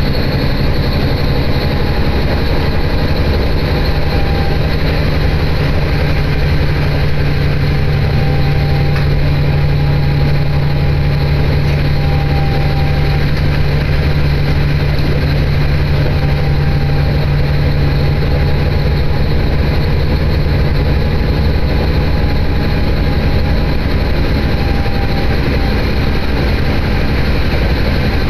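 Diesel railcar running along the line, heard from inside the passenger cabin: a steady, loud engine drone with rail and running noise underneath.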